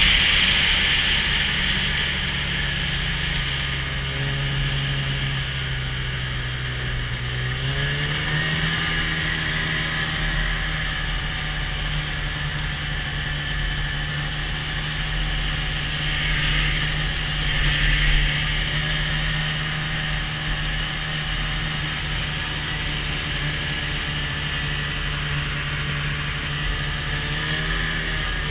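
Snowmobile engine running as the sled travels over snow, its revs climbing about eight seconds in and then holding steady, with a steady hiss over it.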